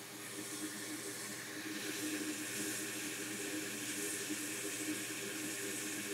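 Hakko hot air rework station blowing a steady hiss of hot air onto a surface-mount fuse, heating it until its solder melts. The hiss grows a little louder over the first two seconds.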